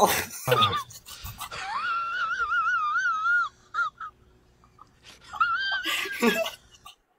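A high-pitched, wavering squeal lasting about two seconds, then a shorter squeal that falls in pitch about two seconds later.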